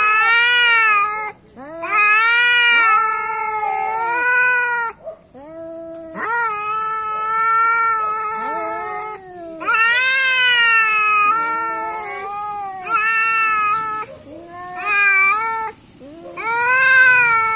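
Domestic cats yowling at each other in a territorial standoff: a string of long, wavering howls, each lasting one to several seconds, with brief pauses between them.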